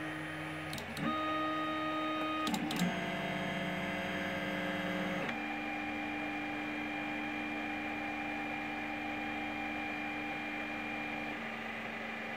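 Tronxy X3A 3D printer's stepper motors whining in steady tones that jump to new pitches as the axes move through the auto-home and auto-leveling routine. There are a few sharp clicks in the first three seconds, then one long steady tone.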